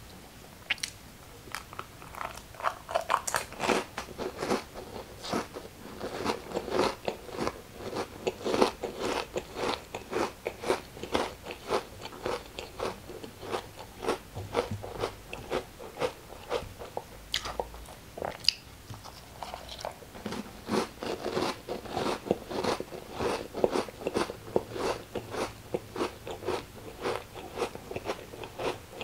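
A person chewing and crunching food close to the microphone: many quick, sharp crunches a second, thinning out briefly near the middle and picking up again.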